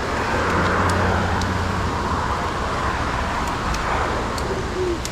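A passing vehicle: a steady rushing rumble with a low hum underneath, swelling about half a second in and easing slightly toward the end.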